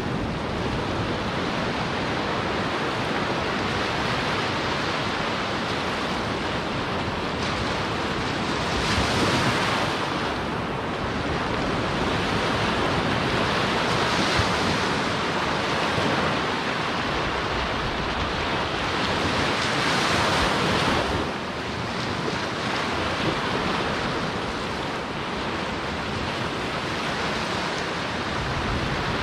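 Small surf breaking and washing up a sandy beach close by, a continuous rushing wash that swells louder as bigger waves break, most clearly about a third of the way in, near the middle and about two-thirds of the way in.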